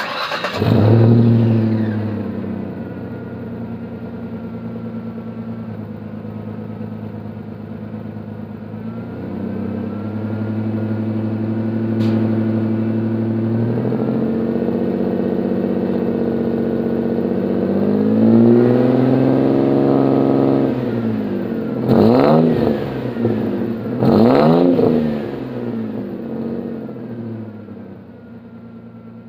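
2000 Ford Ranger 3.0 V6 through a 'bala de plata' muffler and DC Sports exhaust tip: the engine fires up with a brief flare and settles to idle. It revs up slowly, is held up for a couple of seconds, then gets two quick throttle blips about two seconds apart before dropping back toward idle.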